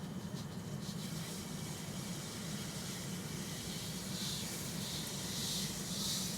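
Granulated sugar being poured into a pan of strained sloe juice: a sandy hiss that grows louder about four seconds in, over a steady low hum.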